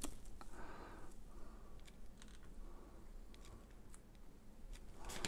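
Faint scattered clicks and light rustling of a small cardboard earbud box being handled.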